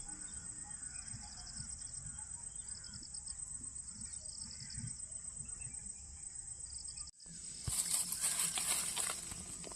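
Insects chirring steadily in a high, pulsing drone, then an abrupt cut about seven seconds in to louder rustling with sharp cracks.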